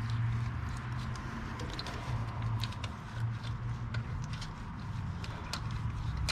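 Light, irregular metallic clicks and taps of hand tools working on a truck's starter, over a steady low hum.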